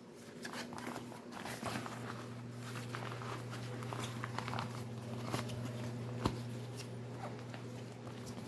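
Hands handling plastic packaging and inflatable swimming arm floats: irregular crinkling, rustling and small taps, with one sharper click a little after six seconds, over a steady low hum.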